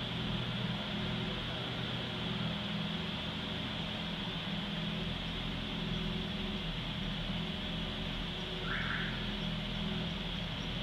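Steady low mechanical hum with a constant high hiss, the running machinery of a vehicle inspection bay; a short chirp about nine seconds in.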